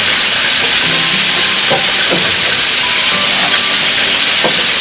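Diced red onion and red bell pepper frying in a hot skillet with bay leaves, a steady loud sizzle.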